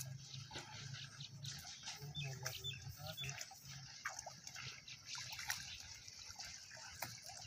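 Water splashing and dripping as a fishing net is hauled through shallow water, with short pitched calls here and there and a steady low hum underneath.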